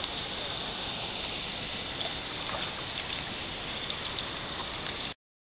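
Seawater sloshing and lapping around a camera held at the surface of the sea, under a steady hiss with a few faint ticks. It cuts off suddenly near the end.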